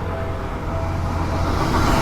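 Electric commuter train approaching a level crossing, its rumble growing louder toward the end.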